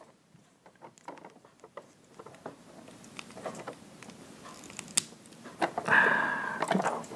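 Faint clicks and light taps of small plastic and die-cast armour pieces being handled and pressed onto a jointed action figure. Near the end there is a short, louder sound.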